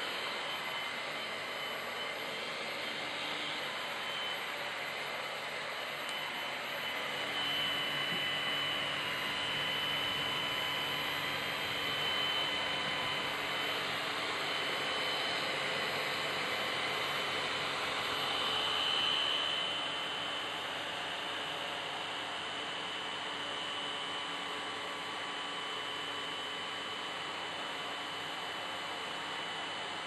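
Upright vacuum cleaner running on carpet: a steady rush of air with a high motor whine. It grows a little louder for a stretch in the middle, then eases back.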